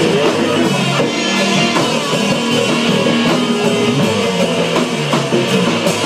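Rock band playing an instrumental passage between sung lines: guitar over a drum kit.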